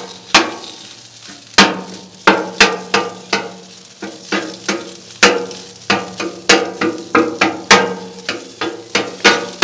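Metal spatula repeatedly chopping and scraping against the steel top of a Blackstone griddle, breaking up raw sausage as it fries, with sharp irregular clacks about two to three a second over the sizzle of the food.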